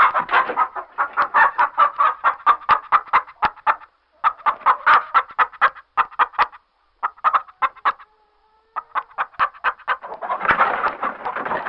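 Hens clucking in rapid runs of short calls, with a brief pause about eight seconds in and a louder, denser cackle near the end.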